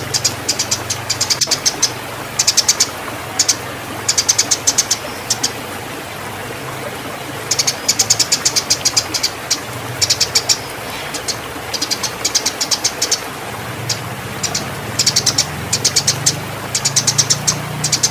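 Eurasian tree sparrows giving rapid, high chirps in quick trains of about half a second to a second, repeated over and over: the excited chirping of sparrows fighting in breeding condition. A steady low hum runs underneath.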